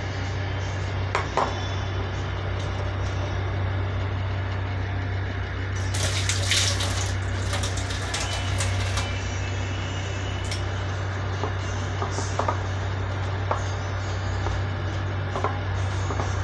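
Metal spoon stirring thick, wet vegetable-fritter batter in a glass bowl: wet squelching and sloshing, with a few light clinks of the spoon on the glass. A louder hissing stretch comes about six seconds in and lasts some three seconds.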